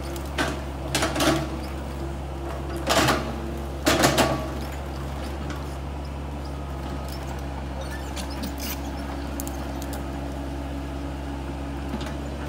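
Excavator's diesel engine running steadily while it pushes a tree over: a series of sharp cracks and snaps of breaking wood in the first four seconds or so.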